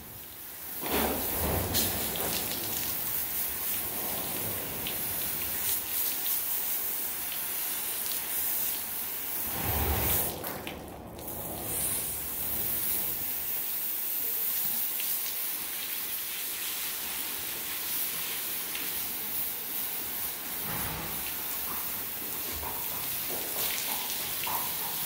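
Garden hose spray nozzle spraying water onto a horse's coat, with water splashing off onto the wash-stall floor. A steady hiss that eases for about a second roughly ten seconds in.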